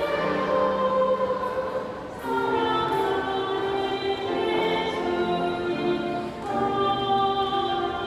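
Choir singing a hymn in long held notes, the chord changing twice.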